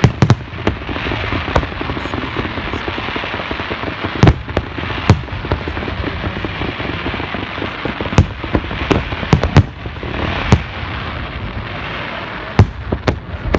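Fireworks going off: about a dozen sharp bangs at irregular intervals, several close together around the middle, over a steady wash of background noise.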